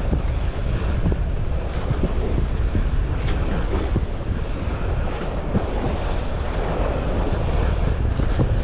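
Wind buffeting the microphone, a steady low rumble with irregular gusty flutter.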